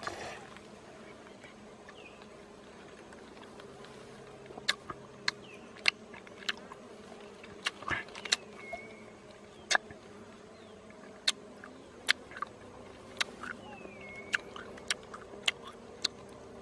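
A person sucks and chews honey from wild honeycomb, making sharp wet mouth smacks and clicks, one or two a second from about five seconds in. Under them, a steady hum of bees or flies buzzing around the comb.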